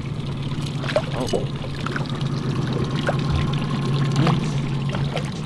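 Boat motor running with a steady low hum at trolling speed, with water splashing and trickling as a hooked kokanee is reeled up to the surface beside the boat.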